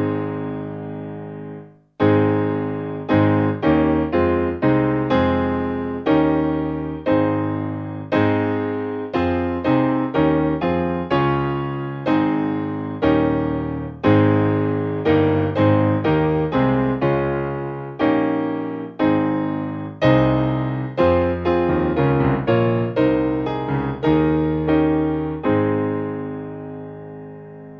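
Solo piano music: a chord at the start rings out, then a slow, gentle run of single notes and chords struck one or two a second, tailing off near the end.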